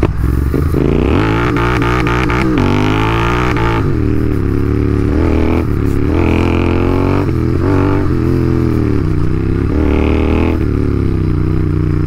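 Royal Enfield Continental GT 650's parallel-twin engine running under way, its pitch climbing and falling several times as the throttle is opened and closed.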